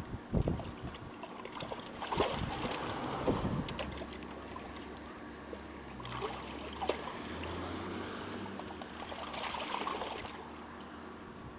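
A dog pawing and stomping in a plastic tub of water, the water sloshing and splashing in several bouts with a few sharper splashes.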